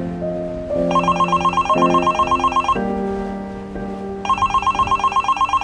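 Nokia mobile phone ringing with an incoming call: two bursts of rapid beeping, about eight beeps a second, separated by a pause of about a second and a half, over soft background music.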